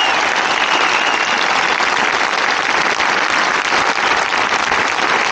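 Large outdoor crowd applauding steadily, thousands of hands clapping at once, with a faint high tone fading out about a second in.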